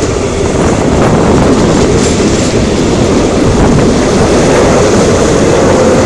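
Cape Town Metrorail suburban train running along the coast, heard loud through an open carriage window: a steady rumble of wheels on the rails with faint clicking and a steady tone under the rumble.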